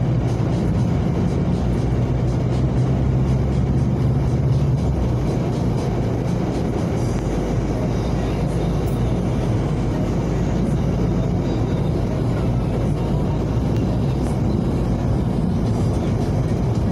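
Steady car engine and road noise while driving, with music playing over it.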